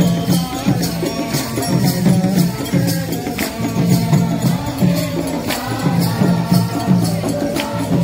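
Background music with a steady beat: a repeating bass line under regular percussion ticks.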